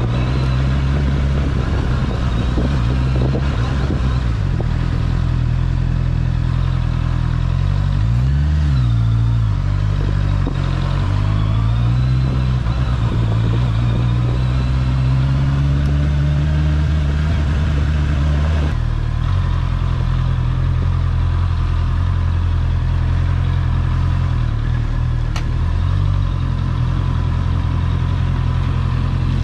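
Honda CBR650's inline-four engine running under way, with the revs dropping and climbing again about eight seconds in and changing again a little later.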